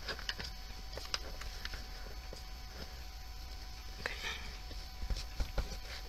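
Sheet of printer paper being folded and creased by hand: scattered soft rustles and small taps, with a brief rustle about four seconds in.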